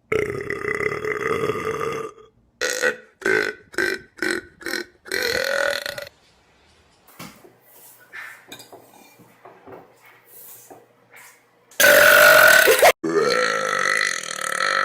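A person belching over and over: a long belch about two seconds, a quick run of about five short ones, another, then after a quieter stretch the loudest belch and one more long one near the end.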